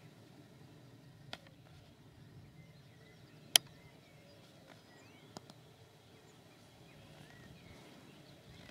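Faint outdoor birdsong, many short chirps from small birds, broken by a few sharp clicks; the loudest click comes about three and a half seconds in.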